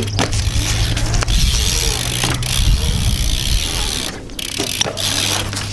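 BMX bike riding a concrete skatepark bowl: the tyres rumbling as they roll on the concrete, with a few sharp knocks as the wheels land and strike the surface.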